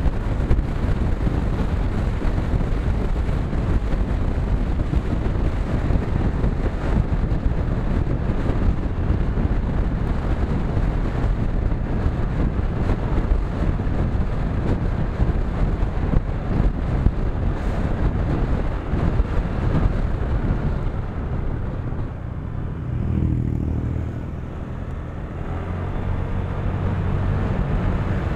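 Riding a motorcycle: wind rushing over the microphone, with the motorcycle's engine and tyre noise underneath. About twenty seconds in, the wind eases and a steady low engine hum stands out.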